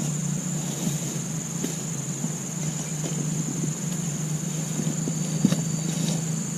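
A steady, high-pitched insect drone over a steady low hum, with a few faint taps and rustles.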